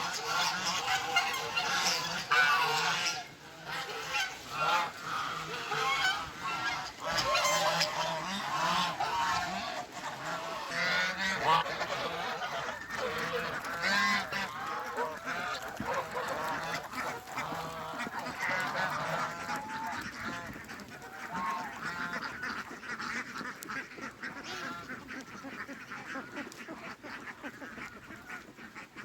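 A flock of domestic geese honking, many short calls overlapping, busiest through the first two-thirds and then thinning out and growing quieter.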